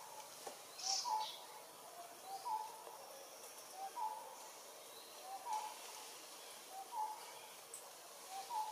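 A bird repeating a two-note call, a short lower note followed by a slightly higher held note, about every one and a half seconds, with faint higher chirps from other birds.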